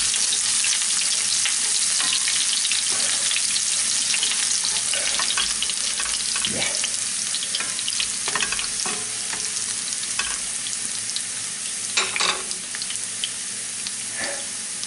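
Chopped garlic and chili pepper sizzling and crackling in hot oil in a frying pan. A wooden spatula stirs them, with a few scrapes and knocks against the pan. The sizzle settles a little quieter in the last few seconds.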